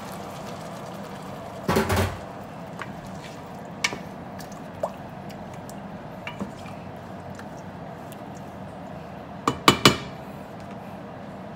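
Wooden spoon knocking and scraping against a stainless steel pot while stirring a thin tomato sauce with onions. There is a clatter of knocks about two seconds in, a few light clicks after it, and louder knocks near the end, over a steady low hiss.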